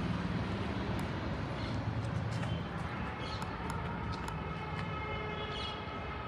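Toyota Innova's engine idling: a steady low hum with a few faint light clicks.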